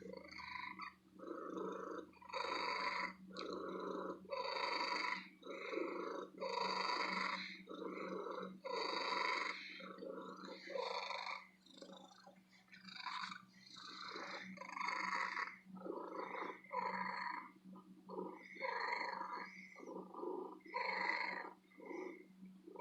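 Domestic cat purring loudly and continuously, the purr swelling and fading with each breath about once a second.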